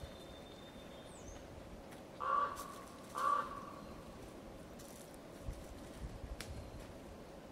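A bird gives two loud, harsh calls about a second apart, each under half a second long.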